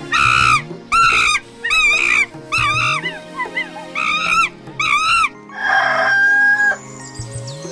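Rooster crowing once, about five and a half seconds in, after a run of about seven short, high-pitched cries.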